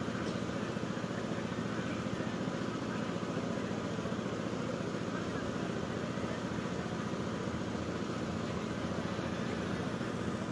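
Steady murmur of a large outdoor crowd, many voices blending into an even background noise with no single voice or event standing out.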